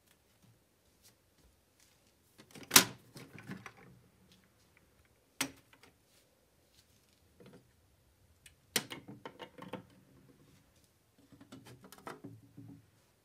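Knocks and clatter of a children's table being handled: three sharp knocks, about 3, 5.5 and 9 seconds in, the first the loudest, each followed by brief rattling, and more rattling near the end.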